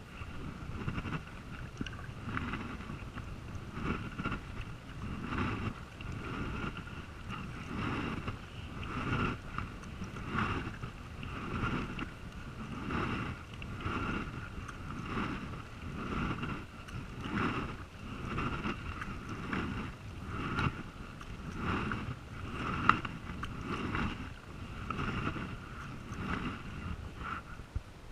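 Kayak paddle strokes in calm sea water, the double-bladed paddle dipping and pulling through in an even rhythm of about one stroke a second, over a low rush of wind on the microphone.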